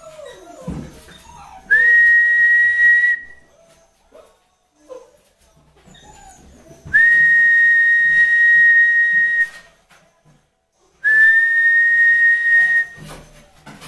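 Three long whistles at one steady high pitch, each with a short rise at its start; the middle one is the longest.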